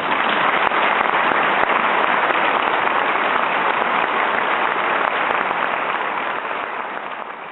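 Large audience applauding, loud and sustained, tapering off near the end.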